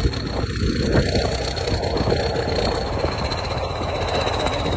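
Heavy vehicle engine idling steadily, a low rumble.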